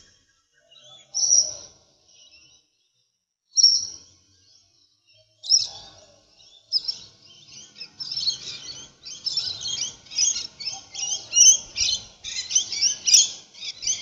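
Small birds chirping, with a few separate calls at first and, from about halfway in, a dense chorus of many birds chirping over one another.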